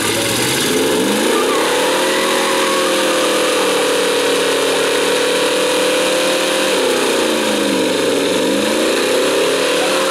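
Full-size Jeep Cherokee's engine revving up and held at high revs for a burnout, with the rear tyres spinning and hissing on the pad. About seven seconds in, the revs drop and then climb back up.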